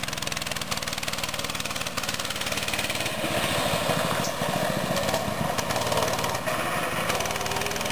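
Mini bike's small engine running as it is ridden away down a dirt lane, a steady motor drone with no sharp changes.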